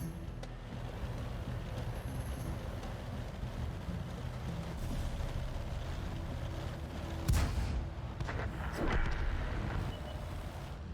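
Steady low rumble with a sharp loud bang about seven seconds in and a longer blast around nine seconds.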